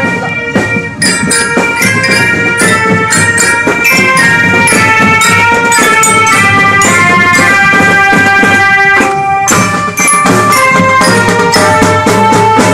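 Children's marching drum band playing. Marching glockenspiels carry a quick melody of bright, stepping notes over a steady beat of snare and bass drums.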